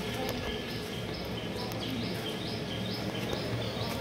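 Water spraying from a washing hose and splashing on the wet ground under a truck, over a low steady hum. High chirps, most likely a bird, repeat about twice a second.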